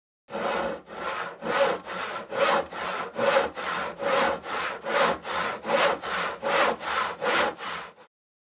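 Handsaw cutting through wood in even back-and-forth strokes, a little over two strokes a second. It starts just after the beginning and cuts off abruptly near the end.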